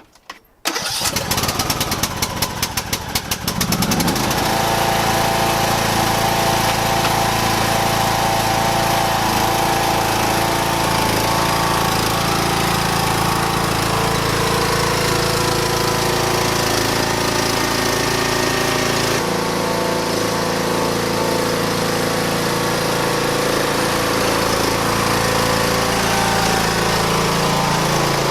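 John Deere lawn mower's small gasoline engine starting: it comes in suddenly with rapid uneven chugging for about three seconds, then catches and runs steadily.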